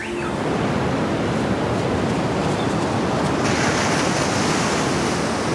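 Ocean surf breaking and washing onto a sandy beach: a steady rush of waves that turns brighter and hissier about three and a half seconds in.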